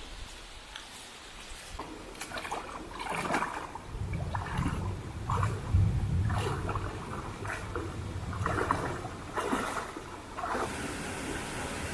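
Running water splashing and gurgling in irregular surges, with a low rumble under it through the middle, settling into a steady rushing hiss near the end.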